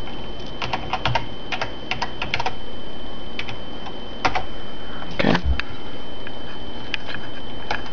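Computer keyboard being typed on: a quick run of key clicks in the first two and a half seconds and a shorter run about three and a half seconds in. A steady high whine runs underneath.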